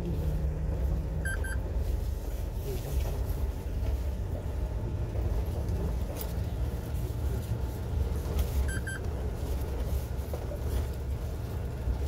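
Truck driving up a steep mountain road: a steady low rumble of engine and road noise. Two short high double pips sound, one about a second in and one about seven and a half seconds later.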